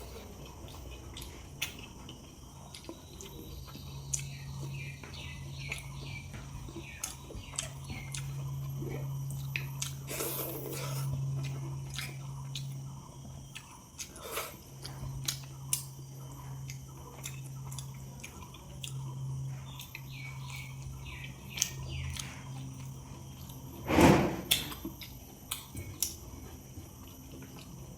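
Close-miked chewing and wet mouth sounds of someone eating rice with curry: a run of short smacks and clicks, with one much louder burst a few seconds before the end.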